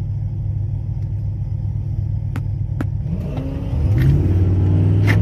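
2012 Ram 1500's V8 idling with a steady low exhaust rumble while staged at the drag strip line, with two faint clicks. About three seconds in the revs climb, and it gets louder as the truck launches down the track near the end.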